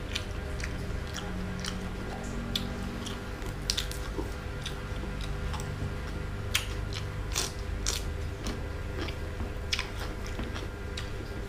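Close-up mouth sounds of a person chewing and crunching raw vegetables, with sharp crunches at irregular intervals, loudest in a cluster a little past the middle.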